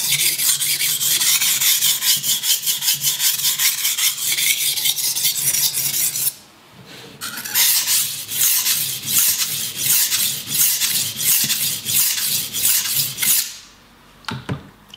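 A cheap soft-steel IKEA kitchen knife sharpened on the fine side of a cheap, water-soaked hardware-store whetstone: quick back-and-forth strokes of the blade scraping across the wet stone. The strokes pause for about a second some six seconds in, start again, and stop a second or two before the end, followed by a couple of light knocks.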